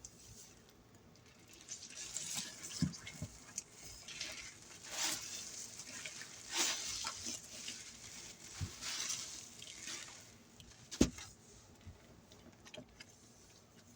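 A soapy sponge loaded with dish soap being squeezed in several separate wet bursts. About eleven seconds in there is a single sharp knock, the loudest thing heard.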